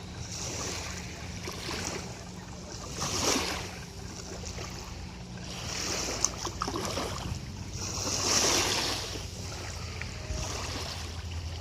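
Rushing noise of lake water and wind, swelling every two to three seconds, with a steady low hum underneath.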